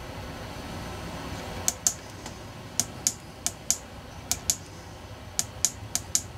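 Sharp clicks, mostly in quick pairs (about six pairs), over a steady low hum.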